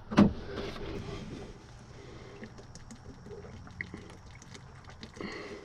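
A person drinking from a bottle, liquid pouring and swallowing, with a faint low steady hum underneath.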